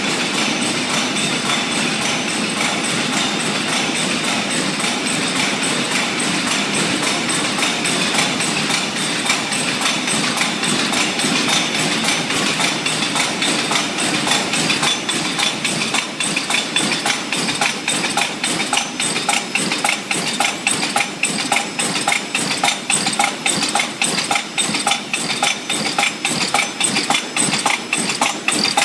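Automatic forging machine running, striking in a fast, regular rhythm over a steady mechanical din; the blows stand out more clearly in the second half.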